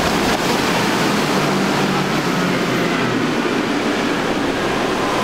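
Four Yamaha 400 hp outboard motors driving a center-console fishing boat at speed: a steady low engine drone under the rush of hull spray. The engine pitch falls a little midway as the boat goes by.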